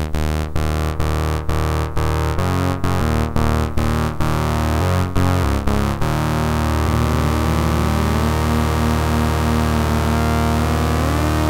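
Eurorack modular synthesizer with several oscillators layered into a sustained chord and a short percussive hit about twice a second. The hits stop about six seconds in, and one oscillator's pitch then glides slowly upward as its knob is turned.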